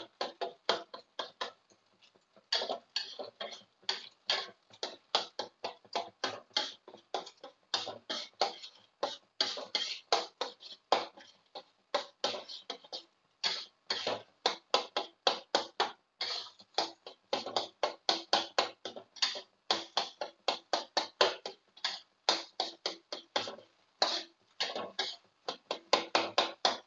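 Spatula scraping and tapping against a wok while eggs are stirred and chopped up in hot oil: a rapid run of short strokes, about four a second, with a few brief pauses.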